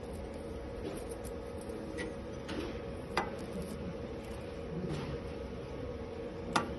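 AC TIG welding machine giving a steady electrical hum, with two sharp clicks, one about three seconds in and one near the end.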